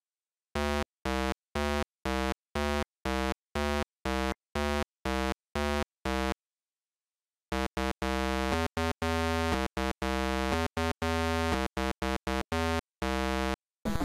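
Retro 8-bit style synthesized buzzing tones. Short pulses come about twice a second, then break off for a second, then return as a faster, uneven run of pulses.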